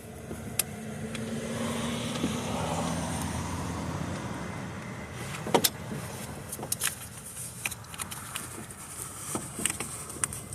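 A car passing by, rising and then fading over the first five seconds. It is followed by scattered sharp clicks and taps of hand tools at work on the starter mounting.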